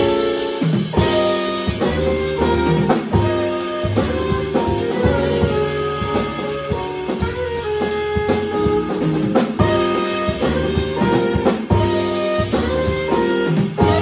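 Live jazz quartet playing: saxophone carrying a melodic line over piano, upright bass and drum kit with cymbals.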